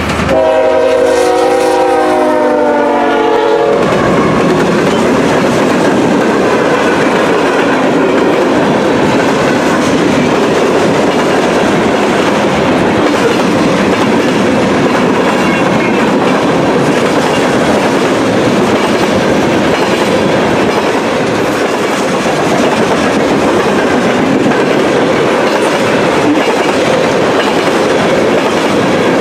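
Freight train passing. The locomotive's chord horn sounds for about four seconds at the start, then the freight cars roll by with a steady rumble and wheel clatter.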